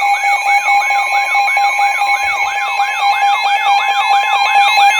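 Emergency Alert System alert tone: a loud steady two-tone alarm, overlaid with a rising siren-like sweep that repeats about three times a second.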